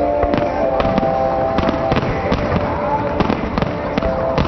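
Aerial fireworks bursting in quick succession: a dense run of sharp bangs, several a second, over continuous crackling.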